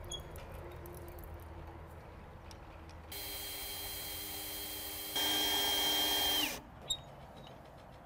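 Small electric power-tool motor whirring with a steady high whine that starts suddenly about three seconds in, steps louder about two seconds later, then winds down and cuts off.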